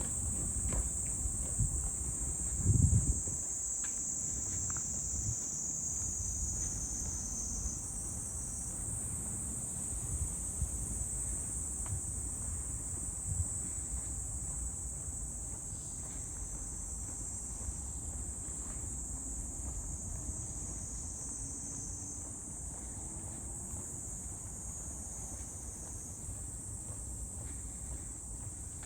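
A steady, high-pitched chorus of insects, continuous throughout, over a low rumble, with a brief thump about three seconds in.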